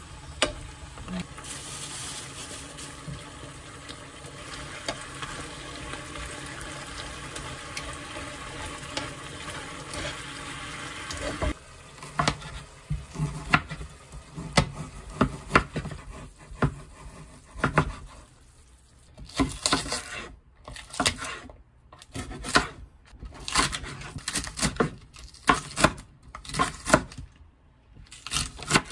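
Meat in sauce simmering and sizzling in a frying pan as it reduces, stirred with chopsticks. About eleven seconds in it cuts off, and a cleaver chops on a wooden cutting board in quick clusters of sharp strokes, through pork belly and then green onion.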